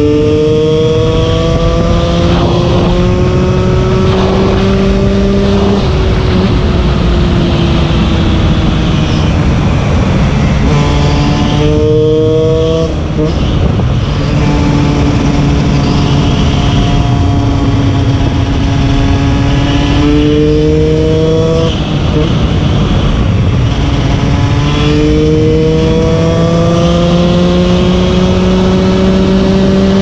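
KTM 125 EXC two-stroke enduro engine with a DOMA Sixdays exhaust, ridden hard and pulling up through the gears. Its pitch climbs steadily and drops sharply at each gear change, several times over. The engine has a new piston and is at the end of its break-in.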